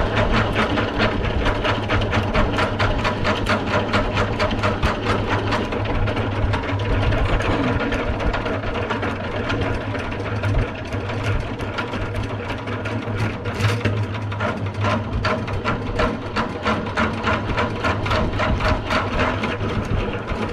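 Honey extractor spinning frames of honey: a steady mechanical whir with a fast, even clatter of about five beats a second. The level dips briefly about halfway through, then the spinning carries on.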